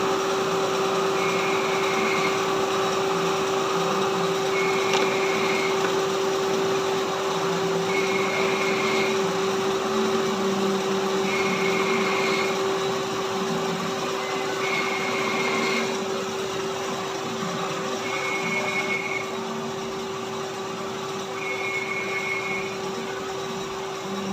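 CNC vertical lathe running with a steady hum and machinery noise, while a high beep sounds for about a second roughly every three seconds.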